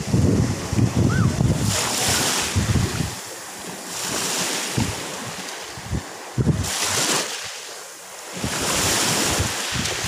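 Small Black Sea waves washing up a pebble beach, the hiss of each wash swelling and fading every two to three seconds. Wind buffets the microphone, most of all in the first few seconds.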